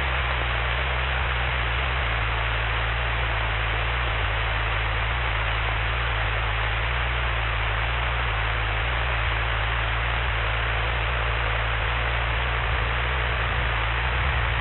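Steady in-flight cabin noise of a Cessna 172's engine and propeller: an even hiss with a low, constant hum underneath, unchanging throughout.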